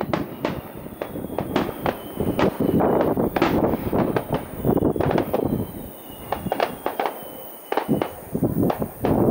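Aerial fireworks shells bursting in a rapid, irregular string of bangs and crackles, easing off briefly about six seconds in before picking up again.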